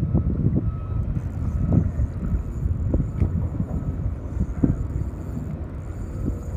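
Wind buffeting the camera microphone: a steady low rumble that swells in short gusts.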